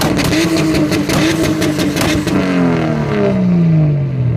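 A Mk3 Toyota Supra's exhaust being revved: the engine is held high for about two seconds with a crackling rasp, then the revs fall away steadily over the last two seconds.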